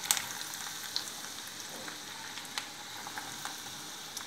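Chopped onions just tipped into hot oil, sizzling in the pan with a steady hiss and scattered crackles, one sharp crackle just after the start.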